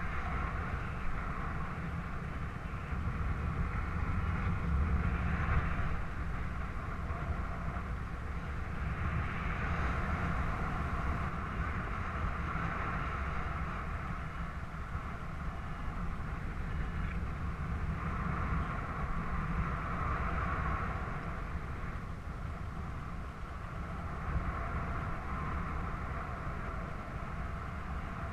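Wind rushing over the camera's microphone during a paraglider flight: a steady airflow noise with a heavy low rumble that swells and eases every few seconds.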